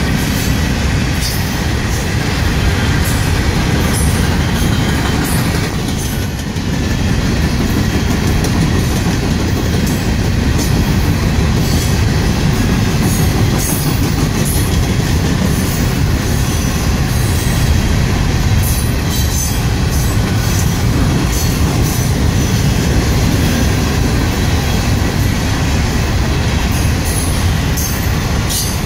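Norfolk Southern Herzog work train rolling past, a steady low rumble of wheels on rail with frequent short, high squeaks and clicks from the wheels throughout.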